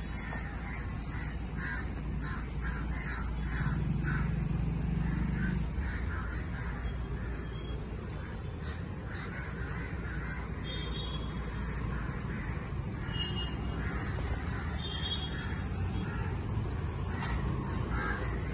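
Crows cawing again and again over a steady low background rumble, with a few higher bird chirps now and then. A low steady drone swells for a couple of seconds about four seconds in.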